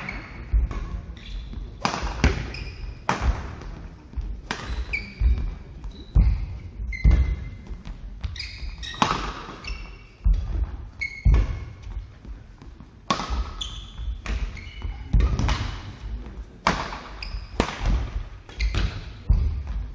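Badminton singles rally: racket strings striking the shuttlecock about once a second, with players' shoes squeaking on the court floor and feet thudding on landing.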